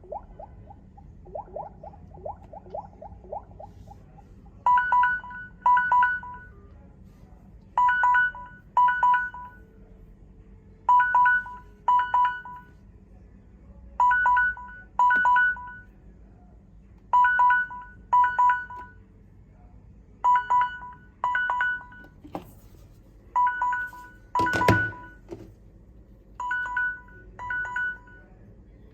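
Smartphone ringtone playing: first a quick run of falling tones, then a double ring of electronic tones repeating about every three seconds. A couple of knocks sound late on.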